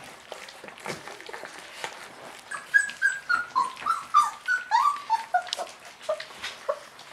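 Chocolate Labrador puppies, about three and a half weeks old, eating their first solid food: wet lapping and smacking, then from about two and a half seconds in a quick run of short, high puppy whimpers, each dropping in pitch, tailing off near the end.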